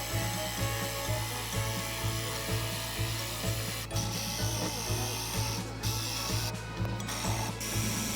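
Power tool running on wood, with brief stops in the second half, over background music with a steady beat.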